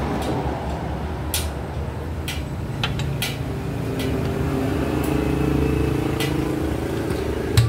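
Sharp metallic clinks and taps of hand tools and loose parts while a motorcycle's clutch housing is taken apart, several scattered through, the loudest a knock near the end, over a steady low drone.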